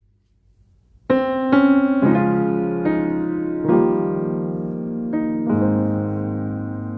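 Gentle piano music: after about a second of near silence, slow notes and chords are struck one after another and left to ring.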